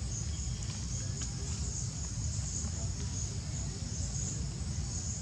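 Steady, high-pitched chorus of insects, pulsing slightly, over a low background rumble.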